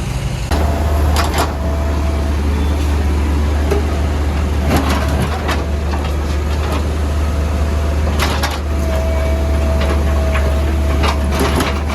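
Caterpillar backhoe loader's diesel engine working under load, with a steady low drone that rises in level about half a second in. A thin steady whine comes in twice, and several sharp knocks are heard, a couple near the middle and near the end.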